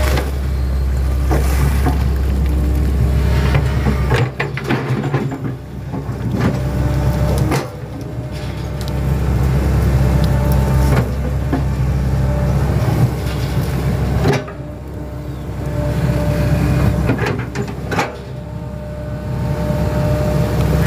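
Hitachi 110 hydraulic excavator's diesel engine running under load while digging, its sound dropping and building back up several times as the hydraulics work the arm and bucket. A few sharp knocks come from the bucket in the soil.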